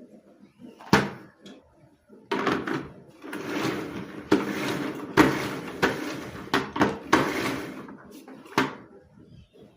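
Household knocks and bangs: a sharp knock, then a stretch of rustling and shuffling noise broken by several more knocks, with a last knock near the end.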